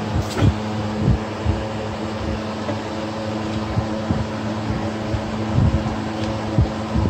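Steady fan-like machine hum, with scattered low thumps and one sharp click about a quarter second in, from hand tools working on a scooter engine's stator wiring.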